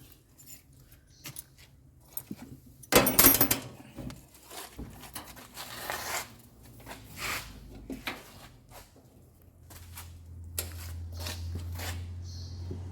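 Scattered clicks and metallic knocks of the dryer's idler pulley and hand tools being handled and fitted, with one louder rattling clatter about three seconds in. A low steady hum comes in near the end.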